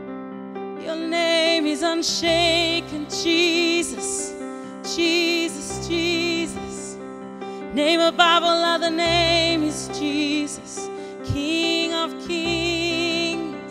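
A woman singing a worship song into a microphone with vibrato on her held notes, over keyboard accompaniment of sustained chords and a deep bass note struck about every two seconds.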